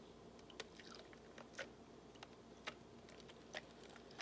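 Near silence, broken by a few faint clicks about a second apart and a sharper click near the end: ice cubes shifting and ticking in a plastic cup.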